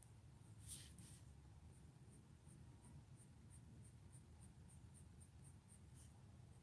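Faint scratching of a Prismacolor coloured pencil (70% French gray) on toned mixed-media paper: a longer stroke near the start, then short directional strokes at about three a second, layering feather texture.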